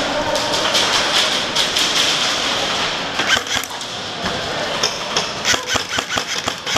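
Airsoft guns firing in single shots: a run of sharp irregular cracks that comes thicker in the second half, over a steady noisy background.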